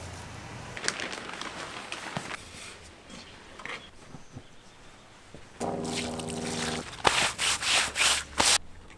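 A push broom scrubbing over a plastic tarp in about five quick, loud strokes near the end, after a brief steady hum.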